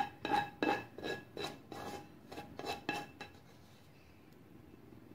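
A spoon scraping sauce out of a pot, in short strokes of about three a second, each with a faint metallic ring. The strokes die away about three seconds in.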